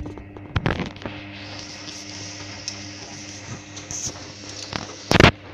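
Hoover Dynamic DYN9124DG washing machine running: a steady hum and hiss with scattered clicks, and one loud knock near the end.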